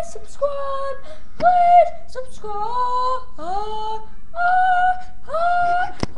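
A high-pitched voice singing a slow tune of held notes, each lasting about half a second to a second, with short breaks between them.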